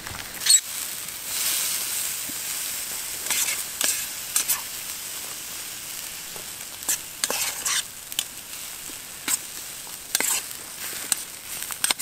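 Mushrooms and capsicum sizzling in a metal frying pan over a campfire, with a steady hiss and the irregular clicks and scrapes of a utensil stirring them in the pan; the sharpest click comes about half a second in.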